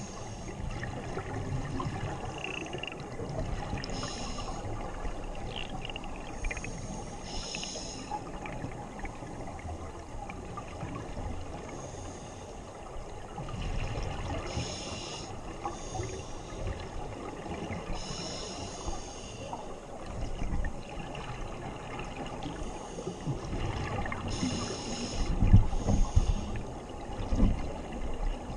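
Scuba divers' regulator exhalations heard underwater: a bubbling hiss every few seconds over a dull, muffled rumble, with a few louder low thumps near the end.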